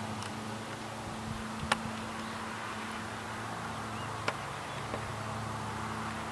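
Steam locomotive and its train running at a distance: a steady low hum with a few isolated sharp clicks.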